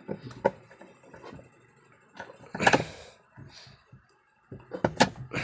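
Scattered metal knocks and clicks from tools working on a washing machine's seized gearbox bolt, with a short scraping burst nearly three seconds in and a quick cluster of sharp knocks near the end.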